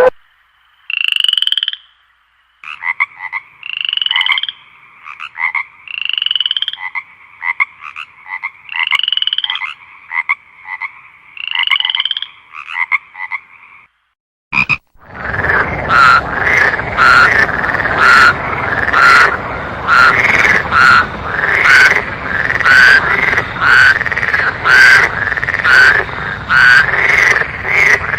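Frogs calling, in two recordings: first repeated croaking calls about every two and a half seconds against a quiet background, then, after a brief gap about halfway, a faster series of calls about once a second over a steady hiss.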